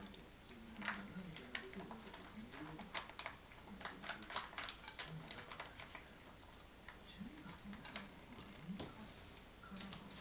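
Several cats eating wet cat food from bowls: irregular small clicks and smacks of chewing and lapping.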